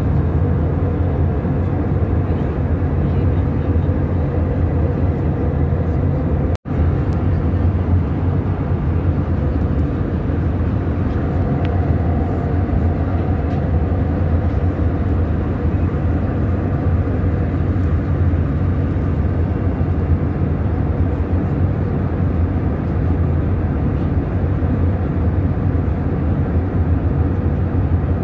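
Steady cabin noise of an Airbus A320neo in flight at altitude: a deep, even engine-and-airflow rumble heard from a window seat. It cuts out for an instant about six and a half seconds in.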